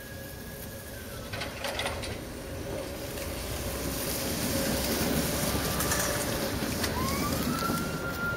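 Tatra tram rolling past close by on snow-covered curved track, its rumble growing louder as it nears. A steady high whine runs under it and rises in pitch near the end. There is a short clatter of clicks about a second and a half in.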